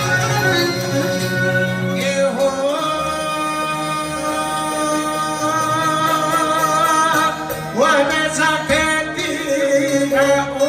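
Albanian folk music: a singer holds long, wavering notes over instrumental accompaniment, with a short break about eight seconds in.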